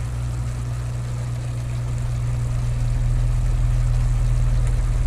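Turr meat, salt beef and onions cooking in oil in a steel pan on an electric burner, with a steady low hum and a faint even sizzle; the hum grows a little louder about three seconds in.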